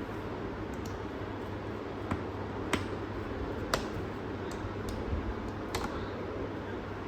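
Small screwdriver tightening the screws of a laptop's bottom cover: a few sharp, irregularly spaced clicks and taps of the tool on the screws and plastic case, over a steady background hiss.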